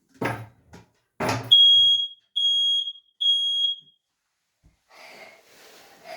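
Smoke alarm being tested: three loud, high-pitched beeps of about half a second each, with short gaps between them.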